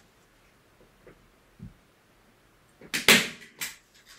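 A hand staple gun clacking: three or four sharp shots close together about three seconds in, after near quiet.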